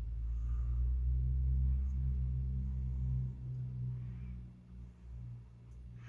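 Low, steady electric hum from the motor of a solder fume extractor fan, fading away about four seconds in.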